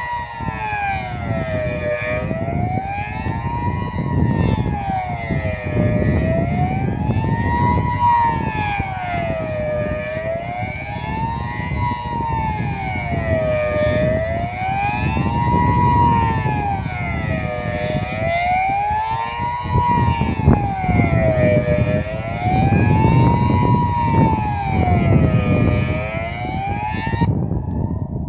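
Civil-defence siren sounding the Swiss general-alarm signal, a steady tone that rises and falls about once every four seconds, during the annual siren test. A low rumbling noise runs underneath.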